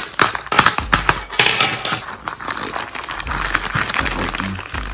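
White plastic mailer bag crinkling and rustling as it is pierced with a key and pulled open by hand, with many sharp clicks and taps.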